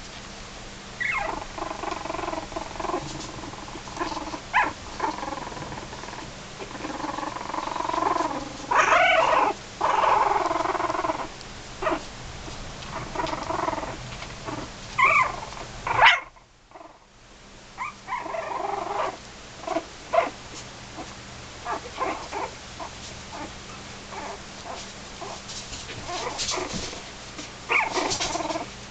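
A litter of very young puppies whining, squeaking and grunting on and off, with short rising and falling cries. The sound drops out briefly just past the middle.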